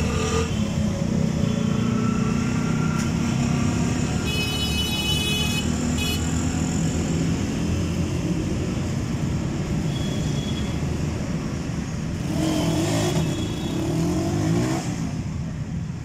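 Motor vehicle engines running steadily, with a high-pitched tone sounding for about two seconds starting some four seconds in. An engine revs up and down from about twelve to fifteen seconds in.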